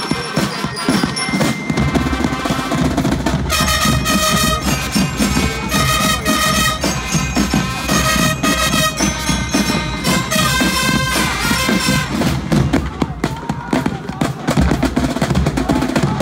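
Marching band playing: trumpets sound chords in phrases over continuous snare and bass drumming.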